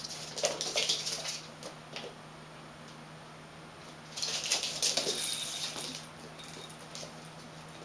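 Persian cat and kittens scampering across a painted floor mat: two flurries of pattering and scuffing paws, one at the start lasting about a second and a half and a louder one from about four to six seconds in.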